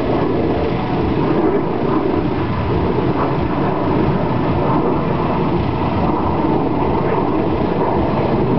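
Steady vehicle engine and road noise: a continuous rumble with no clear changes.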